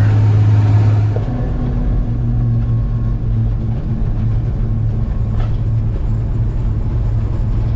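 Steady low drone of a diesel engine running, its sound changing about a second in.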